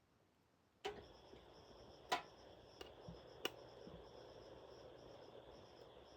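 Insects chirping in a fast pulsing rhythm in the background, broken by a few sharp clicks and knocks, the loudest about two seconds in.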